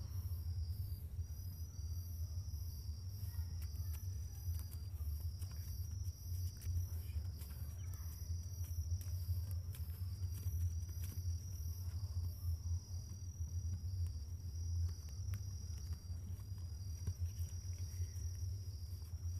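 Crickets chirping steadily in a fast, even pulsing trill, over a low steady hum. Faint clicks and rustles of a small deck of cards being shuffled by hand.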